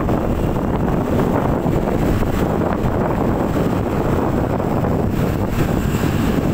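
Steady wind rushing over the microphone of a phone carried on a moving motorbike, with the ride's road and engine noise blended underneath.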